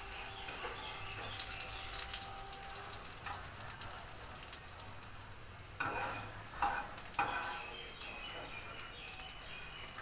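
Potato sticks sizzling as they fry in hot mustard oil, while a wire mesh strainer scoops through the pan. There are a few sharp metal clinks about six to seven seconds in, the strainer knocking against the pan.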